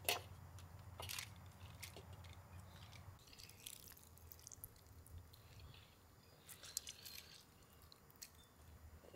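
Quiet handling noises of food preparation: scattered light clicks and taps, with a small cluster about two-thirds of the way through, over a faint low hum.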